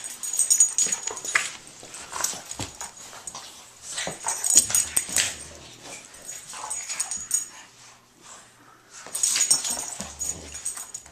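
A small dog and a large dog play-wrestling, with dog vocal noises coming in three loud bouts: at the start, about four seconds in, and about nine seconds in.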